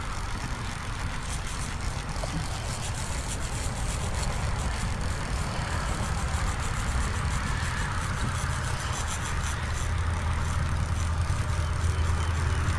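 Steady rumble of interstate highway traffic, growing a little louder toward the end.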